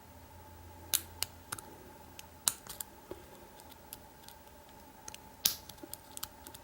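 Small, irregular metallic clicks of a hook pick working the pin stack of a Sesamee 936 hardened-steel padlock under heavy tension, with a few sharper clicks about one, two and a half and five and a half seconds in.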